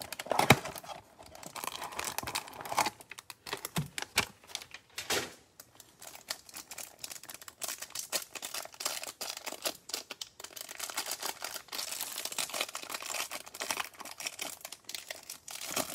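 Clear plastic wrap around a stack of trading cards crinkling and tearing as it is pulled open, in a run of quick crackles, along with the cardboard of a hanger box being handled and opened.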